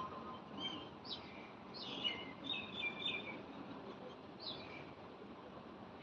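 Birds chirping: a string of short, high, falling notes, bunched in the first three seconds or so, with one more about four and a half seconds in.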